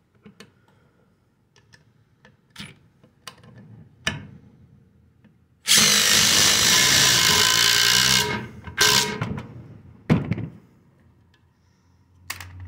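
Two Ridgid impact drivers, a subcompact and a full-size brushless, hammering 3.5-inch Spax screws into a wooden beam at the same time: a loud run of impacting for about two and a half seconds, then two short bursts as the screws are driven home.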